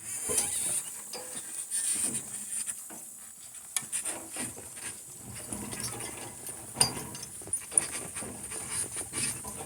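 Donkey-drawn cart moving off, its harness and cart creaking and rattling with irregular knocks and clicks as the team pulls.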